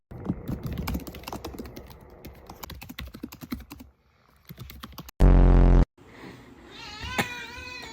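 Typing on a computer keyboard: rapid clicking keystrokes with a short pause about four seconds in. About five seconds in, a loud, low buzzing tone cuts in for under a second, and a short wavering high-pitched cry follows near the end.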